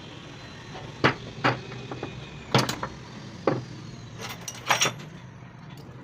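A series of irregular sharp knocks, about eight of them, over a steady low background noise.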